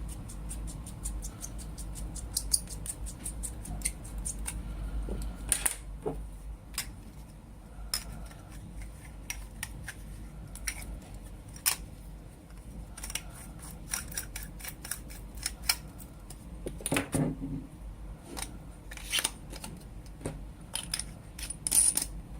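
Small metal lightsaber hilt parts clicking and tapping as they are handled and fitted together, with a few louder knocks near the end, over a steady low hum.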